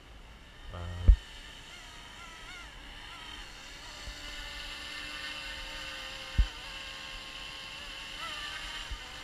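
Eachine UH-60 Black Hawk scale RC helicopter in flight: a steady high whine from its electric motor and rotors, growing a little louder about four seconds in. Two short low thumps come about a second in and about six seconds in.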